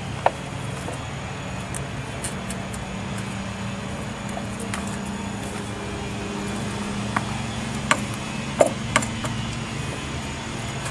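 A steady low engine hum, with a few sharp clicks and knocks, several of them about eight to nine seconds in.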